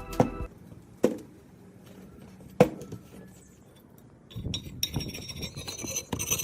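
Two sharp metal clinks about a second and a half apart, each ringing briefly, the second louder, followed by lighter rattling and handling of metal parts. Background music stops just after the start.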